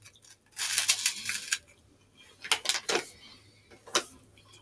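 Crunching and chewing of a large puffed cheese corn snack stick, with crinkles of its foil wrapper: a dense run of crunches lasting about a second near the start, then a few single sharp crackles.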